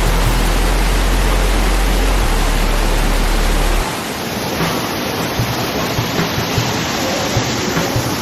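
Waterfall rushing: a loud, steady roar of falling water. About four seconds in, the deep low rumble underneath drops away and the roar gets a little quieter.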